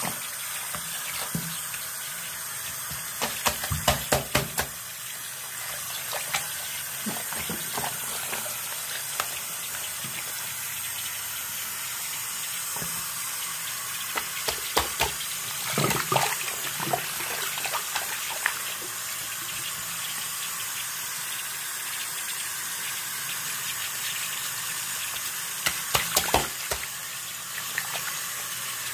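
Bathroom sink faucet running steadily onto a shirt being hand-washed. Clusters of louder splashing and sloshing come as the wet fabric is scrubbed with a bar of soap: about three to five seconds in, again around fifteen to eighteen seconds in, and near the end.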